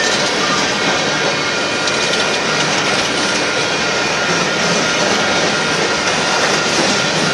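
Union Pacific coal train cars rolling past, a steady loud rumble and roar of steel wheels on the rails.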